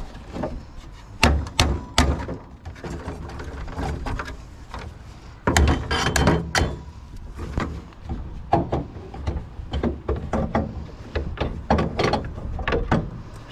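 Knocks, clicks and clatter of a table saw's motor cover being worked loose and pulled off by hand, with a few sharp knocks early on and a dense run of clattering about five and a half seconds in.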